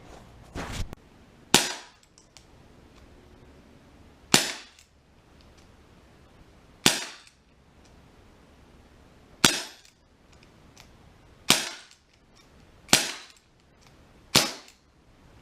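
Ruger Super Hawk CO2 BB revolver firing seven shots, each a sharp crack with a short fading tail, spaced unevenly a second and a half to nearly three seconds apart.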